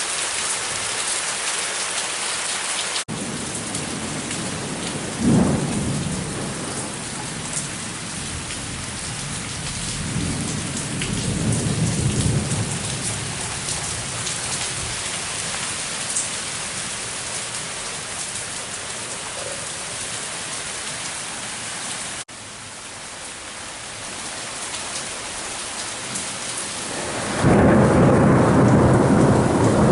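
Heavy summer rain falling steadily, with rolls of thunder: a sudden rumble about five seconds in, a longer one a third of the way through, and a loud rumble that starts near the end and keeps going.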